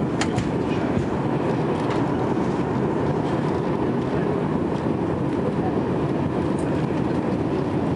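Steady cabin noise inside an Airbus A300 on approach with its flaps extended: an even, low rumble of engines and rushing air.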